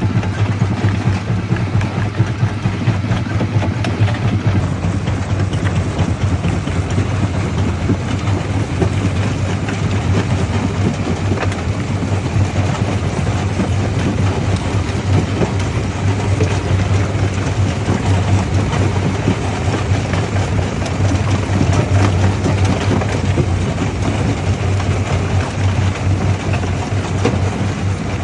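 Primary jaw crusher at work: a steady low machine drone under constant clatter and cracking of stone being crushed.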